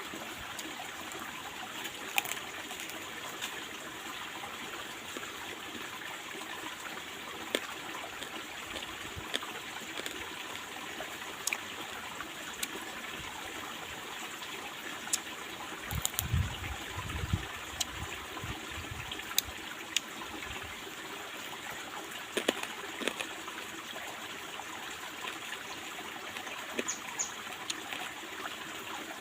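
Stream water trickling and babbling steadily, with scattered sharp clicks and a few seconds of low thumps around the middle.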